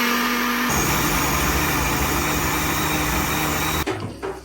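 Electric blender running, blending a thick mix of peppers, tomatoes, onions and yogurt into a sauce. Its motor note drops lower a little under a second in, then it cuts off near the end.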